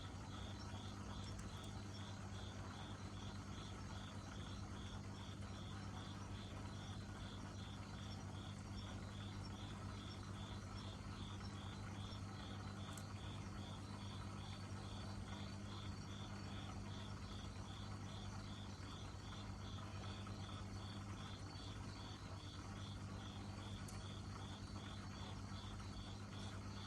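A cricket chirping steadily, about two to three short high chirps a second, over a faint steady low hum.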